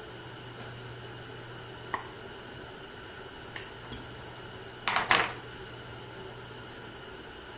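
Metal spoons clinking and clattering on a wooden board: one light click about two seconds in, two small clicks a little later, then a louder clatter of several knocks about five seconds in.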